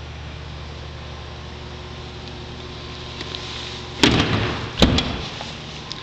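Steady low hum of the 2011 Kia Sportage's engine idling with the hood up, then two loud bangs about four seconds in and under a second apart as the hood is brought down and shut.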